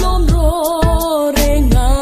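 A woman singing a Biate Christmas song over a backing track, holding notes with a slight waver, with a steady drum beat and bass underneath.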